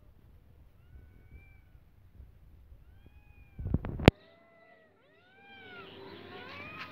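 Cats meowing: short arched calls, a few at a time, with several overlapping near the end. A few sharp knocks just before four seconds in are the loudest sound.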